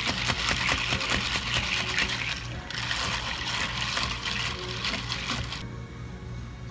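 Ice cubes rattling and clinking in a plastic cup as an iced latte is stirred with a straw, in two spells with a brief break about two and a half seconds in; the stirring stops shortly before the end. A steady low hum runs underneath.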